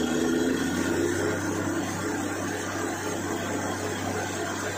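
Truck-mounted borewell drilling rig running steadily: its engine and air compressor drive the down-the-hole drill with a constant hum and rushing. Muddy water and cuttings are being blown up out of the borehole, the sign that the bore has struck water.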